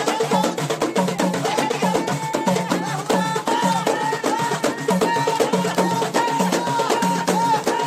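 Fast rhythm of Moroccan hand drums played together: a frame drum and small clay goblet drums (taarija) struck by hand in quick repeating strokes.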